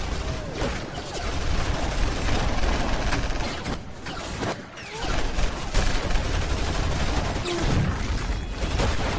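Dense, sustained volley of gunfire from many guns firing at once, shots overlapping without a break. There is a brief lull about four seconds in before the firing picks up again.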